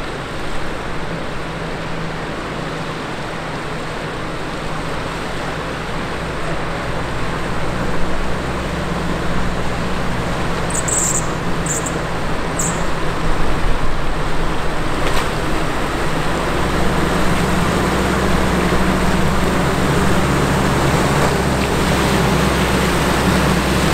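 A Nissan Navara ute running as it wades through a shallow, stony river, its engine growing louder as it comes closer from about two-thirds of the way in, over the steady rush of the river's flowing water. Three short high chirps sound about halfway through.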